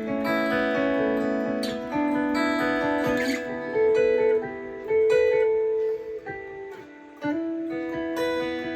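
Gibson ES-335 semi-hollow electric guitar being played: chords and single notes ring out and change every second or so. The sound drops away briefly about seven seconds in, then a new chord rings.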